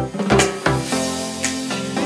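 Background music: drum-kit beats for about the first second, then the drums drop out and held notes carry on.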